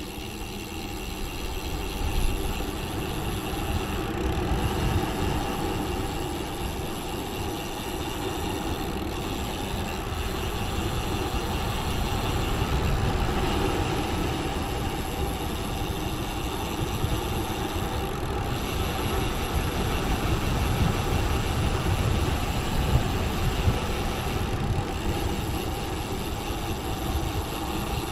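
Wind rushing over the microphone and road-bike tyres rolling on tarmac during a fast downhill descent, a steady rumbling rush that swells slightly after the first couple of seconds.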